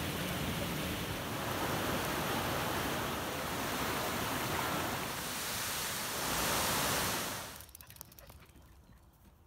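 Steady rushing of falling water from waterfalls. It cuts off suddenly about three-quarters of the way in, leaving a quiet background with a few faint clicks.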